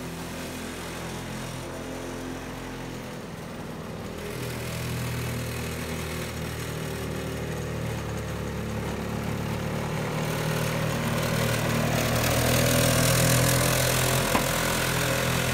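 Engine of a 1952 Shay Rotoscythe 16-inch Windsor self-drive rotary mower running steadily while mowing grass. It grows louder as the mower comes closer and is loudest about twelve seconds in.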